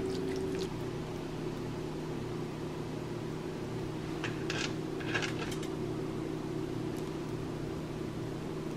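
Steady hum of a kitchen appliance or fan, with two short soft rustles about four and five seconds in.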